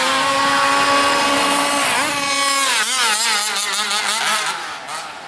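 Radio-controlled cars' motors whining at speed. The high-pitched whine holds steady for a couple of seconds, then wavers rapidly up and down as the throttle is worked, and fades away near the end.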